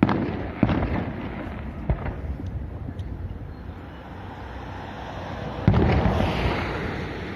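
Fireworks bursting: a loud bang right at the start, more bangs about half a second and two seconds in, and another heavy bang near six seconds, each followed by a long rumbling echo and crackle.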